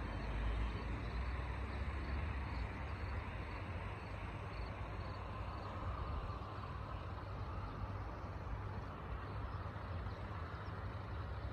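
Steady outdoor background noise with a low rumble underneath and no distinct events.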